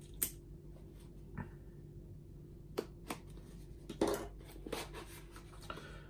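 Handling noise from a small package being opened by hand: scattered sharp clicks and taps, with a short rustle about four seconds in.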